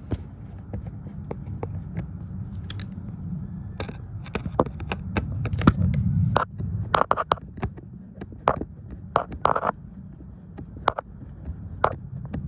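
A screwdriver undoing small screws and parts being handled: irregular sharp clicks and short scraping strokes over a low handling rumble, busiest in the second half.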